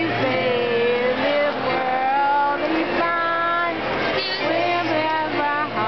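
Voices singing, with a run of held notes that step from one pitch to the next.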